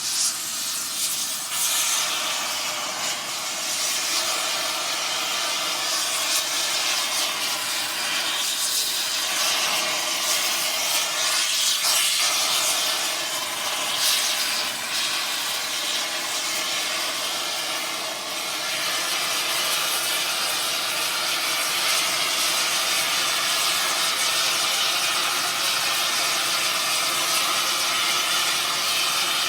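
Air torch working on metal: a continuous rushing hiss with faint steady tones underneath and brief surges now and then.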